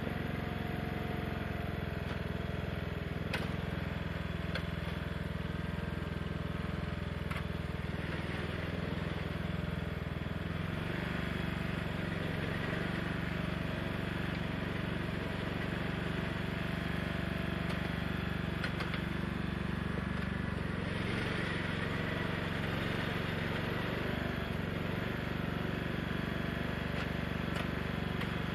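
Troy-Bilt Bronco lawn tractor's 19 hp Kohler Courage engine running steadily under load as it tows a cart of logs over rough, hilly ground. The engine note shifts a little as it works, with a few light knocks.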